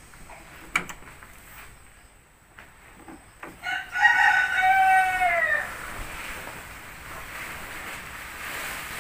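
A rooster crowing once, a single call of about two seconds that drops in pitch at its end, starting about four seconds in. Before it, a few light clicks from hand work on a scooter's rear drive pulley, the sharpest about a second in.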